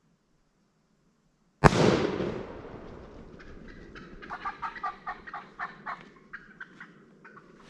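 A single shotgun blast about a second and a half in, fading over about a second. It is followed by a rapid run of short, sharp wild turkey calls, about three or four notes a second, from the surviving birds reacting to the shot.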